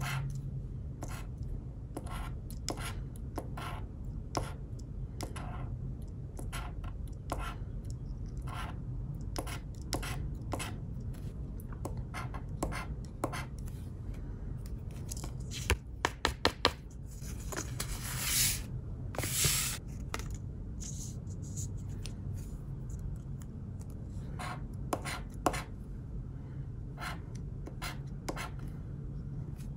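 Metal tool scratching the silver coating off a paper scratch card in quick, repeated short strokes. Midway the scratching stops for a few sharp clicks and two brief swishes, then the strokes start again.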